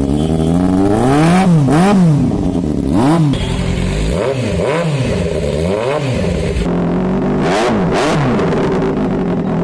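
Inline-four superbike engine idling and being revved in short, sharp throttle blips: about nine quick rises and falls in engine pitch, several in quick pairs.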